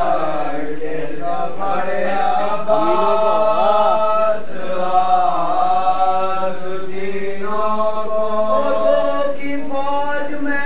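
Group of men chanting an Urdu salam, a Shia elegy, without instruments, holding long notes that waver and glide in pitch.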